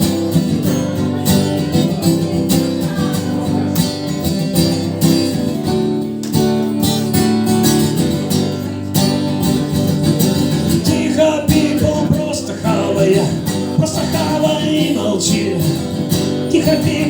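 Acoustic guitar strummed steadily as a song intro, with a man's singing voice coming in over it in the second half.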